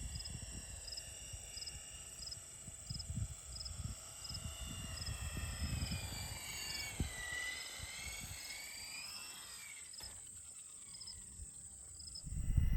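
Kyosho Hyperfly Apache electric RC helicopter in flight: a steady high electric-motor and rotor whine that sags in pitch and climbs back about midway. A short chirp repeats about every two-thirds of a second behind it, and low gusty rumble comes and goes.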